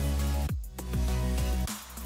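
Background music with deep bass notes that slide down in pitch and swell and fade about once a second.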